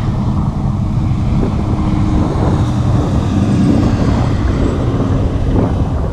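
Wind buffeting the microphone, a loud, steady low rumble, with a faint steady hum underneath through the middle.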